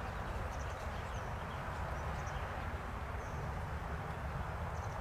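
Outdoor riverbank ambience: a steady hiss with an unsteady low rumble beneath it, and a few faint, brief bird chirps.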